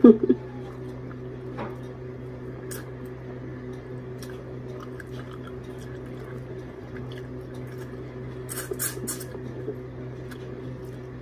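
Scattered small clicks and crackles of shell-on shrimp being peeled by hand over a plate, with a denser burst of crackling about eight and a half seconds in. A steady low hum runs underneath.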